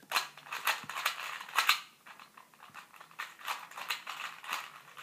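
Plastic 2x2 puzzle cube being turned quickly through a sequence of moves: rapid clicking and clacking of the layers, in two runs with a short lull near the middle.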